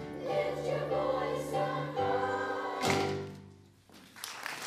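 Children's choir with piano singing the last phrase of a song, ending on a held final chord that dies away about three and a half seconds in. Audience applause starts just before the end.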